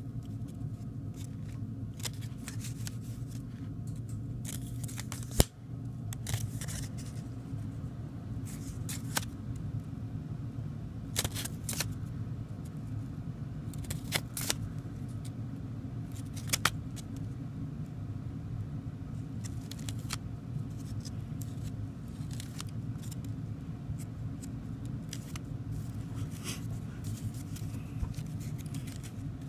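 View-Master reels and their paper envelopes being handled, with scattered clicks and rustles over a steady low hum; the sharpest click comes about five seconds in.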